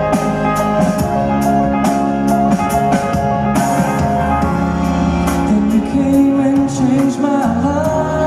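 Pop-rock song music with drum kit hits and guitar over held chords. A voice sings gliding notes in the second half.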